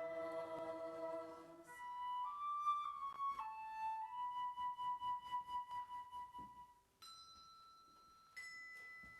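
Slow, quiet instrumental music. A held chord ends under two seconds in, then a single melody line plays on its own with an even pulsing vibrato. Two clear ringing tones sound near the end.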